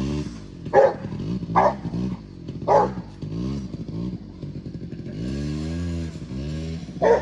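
Small engine of a kids' Polaris Predator quad revving up and down as it is ridden, settling into a steadier, higher run about five seconds in. A dog barks sharply four times over it: three barks in the first three seconds and one at the very end.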